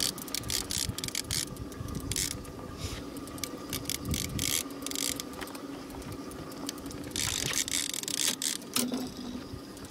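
Fishing reel clicking and ratcheting in bursts as a heavy striped bass is reeled in close to the boat, over a steady low hum.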